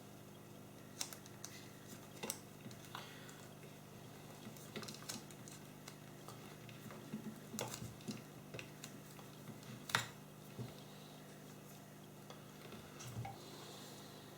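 Electrical insulation tape being unrolled and wrapped around a soldered wire joint: scattered light clicks and taps with soft rustles, over a steady low hum.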